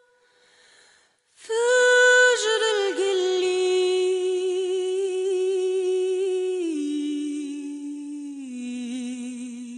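A single unaccompanied voice humming long held notes with a slight waver, starting after a short pause about a second and a half in. The pitch steps down three times, each note held for a second or more.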